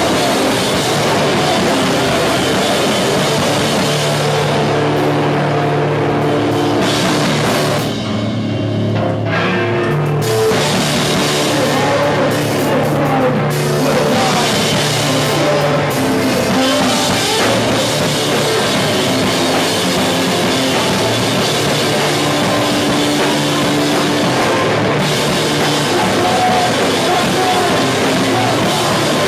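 Loud live rock band playing: a drum kit pounding under amplified instruments in a dense, continuous wall of sound. The band drops back briefly about eight seconds in.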